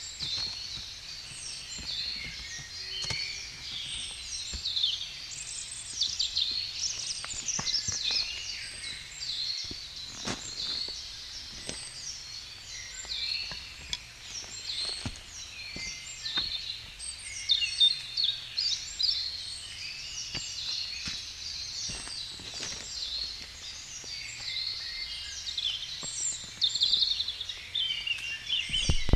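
Several birds singing in woodland: a steady chorus of high chirps and trills, with one high note repeating about every second and a half, and a few sharp clicks scattered through.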